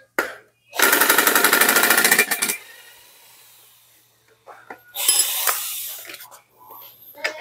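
Cordless impact driver hammering on the screws of a brush cutter's recoil starter cover: a loud rapid rattle for about two seconds, then a second shorter burst about five seconds in.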